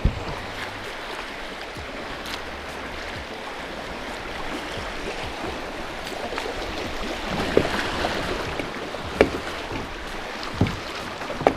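Fast river water rushing steadily around a kayak, with a few sharp knocks in the second half.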